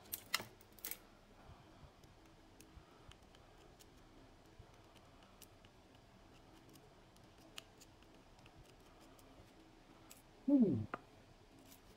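Small metal clicks and light ticks from a screwdriver and parts being handled while a Shimano Miravel 2500HG spinning reel is taken apart. There are a few sharper clicks in the first second. Near the end comes a short call that falls in pitch.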